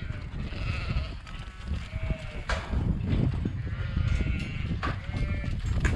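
Dohne-Merino cross sheep bleating in a holding yard, several separate bleats, with a few sharp knocks among them over a steady low rumble.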